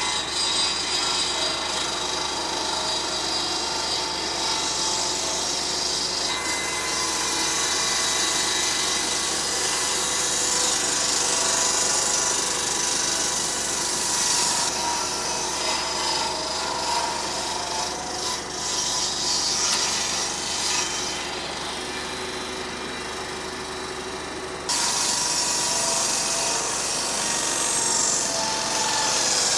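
Circular saw bench ripping a long softwood timber lengthwise, the blade running continuously through the wood. Its pitch and level shift abruptly several times.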